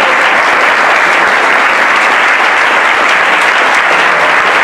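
Theatre audience applauding, steady sustained clapping from many hands.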